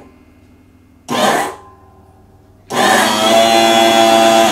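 Electric hydraulic pump motor of a Bonny Doon electric press running in bursts as it drives the ram down to press metal into a die: a short burst about a second in, then a longer steady run of about two seconds near the end.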